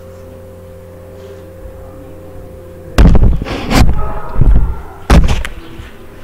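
A steady low hum, then from about halfway through about four loud knocks and scrapes of chalk and a wooden ruler against a blackboard as axis marks are drawn.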